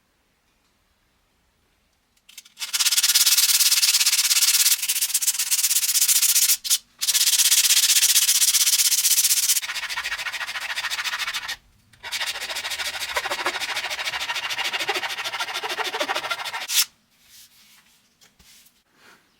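Wood being sanded: a steady, gritty rasp in long passes with short breaks, quieter in the second half, stopping a couple of seconds before the end, followed by a few faint small knocks.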